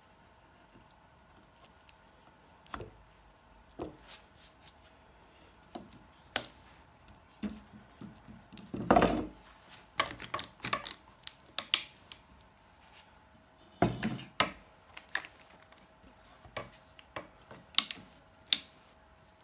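Wooden handle scales being pressed onto a cleaver's tang and clamped with one-handed bar clamps: irregular clicks and knocks of wood and plastic, with the clamps being squeezed tight. The loudest is a short rattle about nine seconds in.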